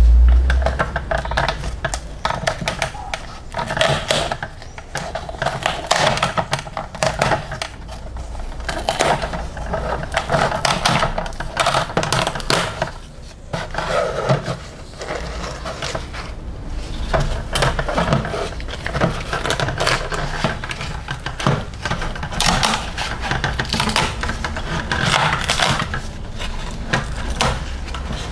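Crinkling and crackling of a stiff, aged model-truck tarp cover being peeled off a plastic cargo bed and crumpled by hand, with irregular small clicks and scrapes of handling.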